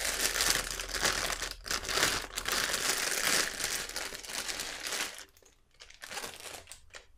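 Clear plastic wrapping crinkling and crackling as a camera lens is worked out of it, for about five seconds. Then a pause and a few softer rustles as the plastic is pushed aside.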